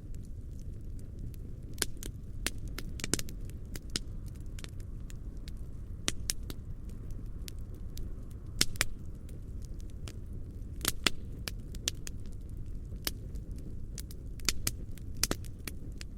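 Medium-sized campfire burning: a steady low sound of the flames under irregular sharp crackles and snaps of the burning wood, with a few louder clusters of snaps.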